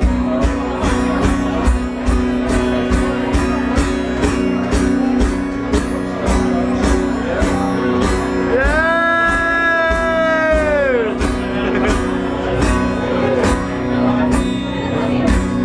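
Live band playing an instrumental passage: drums keep a steady beat under guitar and bass. About nine seconds in, a lead line holds one long note that bends up and falls away over roughly two seconds.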